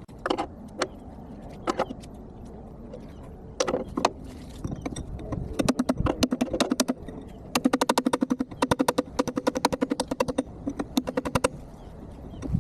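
Hammer blows on a chisel against steel: a few separate strikes, then a long fast run of ringing metallic hits, with the footage sped up.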